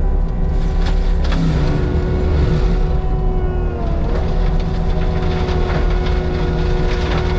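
Diesel engine of a Caterpillar compact machine running steadily under work, with a few brief knocks from the machine.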